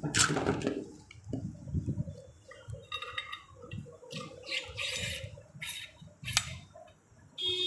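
Metal pump parts clinking, knocking and scraping during hand assembly, in scattered bursts with a few sharp knocks. A short high-pitched beep sounds near the end.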